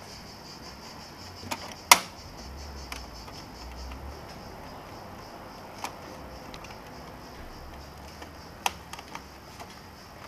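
Small screwdriver prying at the plastic side trim of an Epson Stylus Photo RX685 printer: a few scattered sharp plastic clicks, the loudest about two seconds in, with fainter ones around six and nine seconds.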